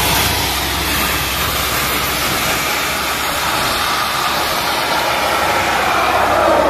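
Down-the-hole (DTH) borewell drilling rig at work: a loud, steady rush of compressed air blows cuttings and water out of the borehole around the drill pipe, with the rig's engine running underneath. Near the end, a whine falls in pitch.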